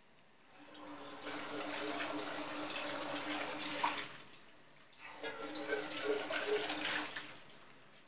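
Kitchen tap running in two spells of a few seconds each, the flow carrying a steady low pitched note.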